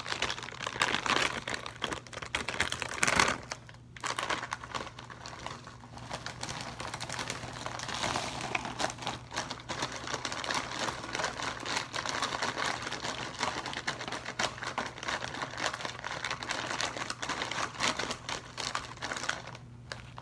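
Metallized snack bag of Takis crinkling and rustling as it is handled and shaken, with the chips pouring out onto a paper plate. The crackling is loudest about one and three seconds in and pauses briefly about four seconds in.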